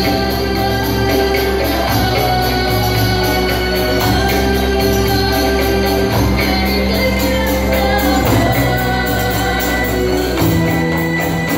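Children singing through microphones with a rebana ensemble: frame drums with jingles keep a steady rhythm over sustained bass notes.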